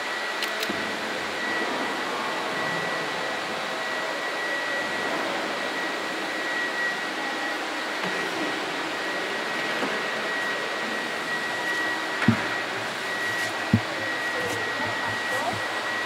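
Vacuum cleaner running steadily, a constant rushing noise with a high whine, and two short thumps late on.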